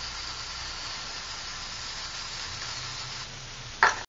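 Aerosol spray paint can hissing steadily as it sprays black paint over a stencil onto paper, with a short, louder burst near the end before the sound cuts off.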